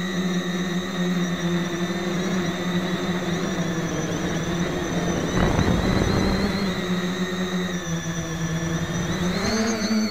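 Quadcopter motors and propellers whining steadily, heard from the craft's onboard camera. A burst of rushing noise comes about five and a half seconds in and lasts about a second, and the pitch rises briefly near the end as the motors speed up.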